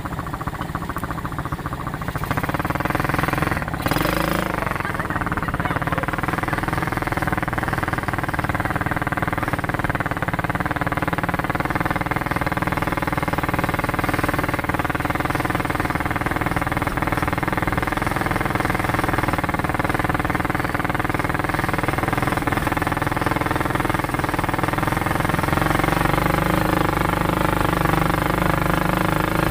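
ATV engine running steadily at a constant speed, with one sharp knock about four seconds in and a slight change in the engine note near the end.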